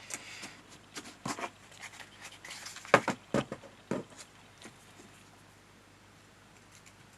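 Cardstock pieces being handled on a work table: a few rustles and several sharp light taps in the first four seconds, the loudest about three seconds in, then only faint room noise.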